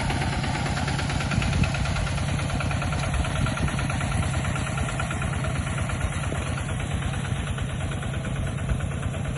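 An engine running steadily at a low, even speed, with a rapid regular beat.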